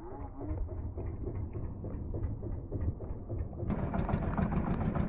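Boat engine running steadily with a low, pulsing rumble. It becomes louder and brighter about three and a half seconds in.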